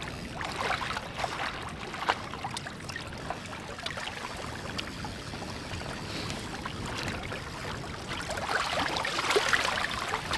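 Choppy lake water lapping and splashing beside a boat and around a landing net held in it. The splashing grows louder over the last couple of seconds as a hooked northern pike is brought up to the surface at the net.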